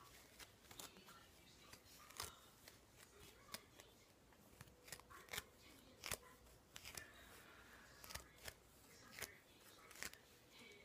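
Faint, scattered small clicks and rustles of hands twisting and wrapping hair into a Bantu knot, about one every second.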